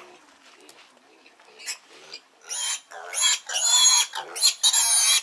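Piglet squealing as it is carried in a person's arms. It is faint for the first couple of seconds, then gives a run of loud, high-pitched squeals from about halfway through.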